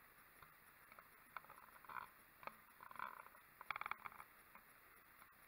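Faint turkey calling: a short note about two seconds in, another about three seconds in, then a quick run of notes near four seconds.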